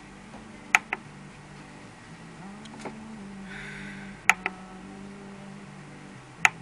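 Push-and-turn select knob on an internet radio being pressed to confirm menu choices: three sharp double clicks, press then release, about a second, four seconds and six and a half seconds in.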